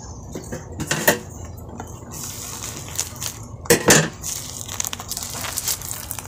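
Black plastic bag rustling and crackling as bottles are pulled out of it and unwrapped, with sharp crinkles that are loudest about four seconds in.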